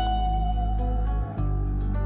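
Background music: a slow melody of separate notes over a steady low bass line, the bass changing once a little past halfway.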